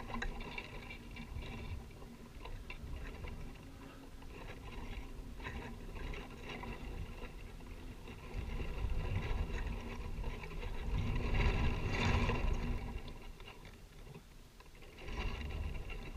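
Wind buffeting the microphone, rumbling in gusts that swell about eleven to twelve seconds in and drop off near the end.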